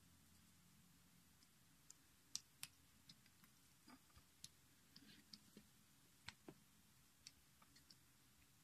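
Near silence with faint, irregular small clicks and ticks, starting about two seconds in and scattered through the rest.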